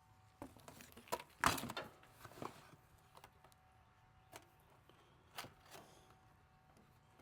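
Handling noise: a cluster of knocks and a scrape about a second and a half in, then a few single sharp clicks.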